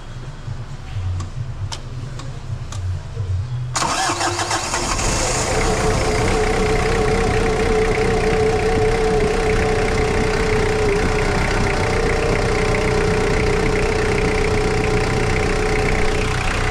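2003 Ford Ranger's four-cylinder diesel engine starting about four seconds in and settling into a steady idle with a steady whine over it. This is its first start after a new injection pump belt and crankshaft pulley, and it runs as it should.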